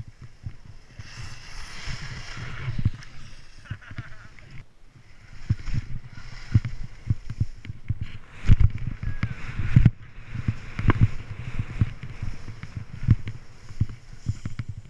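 Skis sliding and scraping over crusty snow on a downhill run, with rushing wind on a helmet camera's microphone that gives heavy low thumps. The loudest thumps come about two thirds of the way through.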